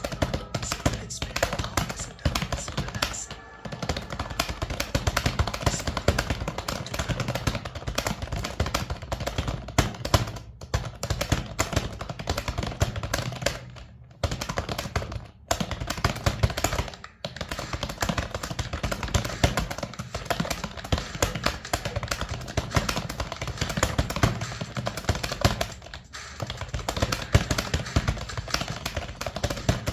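Rapid, continuous key-tapping on a computer keyboard, a fast stream of clicks that pauses briefly a few times.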